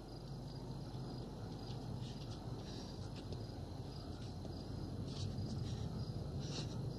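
Insects chirping in a steady high trill, over a low rumble that slowly grows louder.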